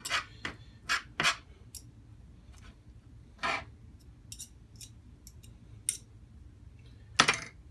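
Metal fork tines scraping and clicking on a plastic cutting board while shredding smoked chuck roast, in irregular short strokes, with the loudest clack near the end.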